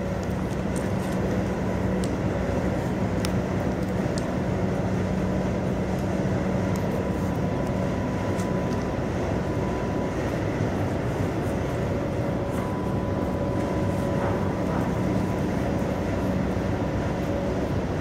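Niederfinow ship lift machinery running while a riveted steel counterweight block travels in its shaft: a continuous mechanical rumble with a steady hum and a higher whine, and a few faint clicks.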